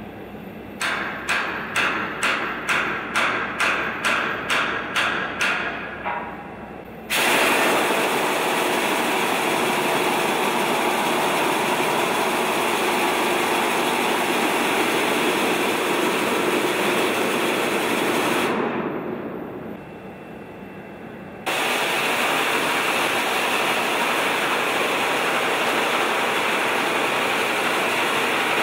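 Hose-fed power wrench working a large nut on a rotary kiln section: about a dozen rhythmic rattling strokes, roughly two a second, then the tool running steadily for about eleven seconds, tailing off, and starting again sharply a few seconds later.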